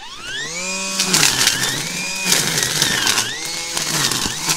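Makita DUR187LZ 18V brushless line trimmer running flat out on its high-speed setting: its whine rises over the first second as the head spins up, then holds. The line slashes through weeds with crackling swishes, and the pitch dips briefly about three seconds in as the head bites into thick growth, then recovers.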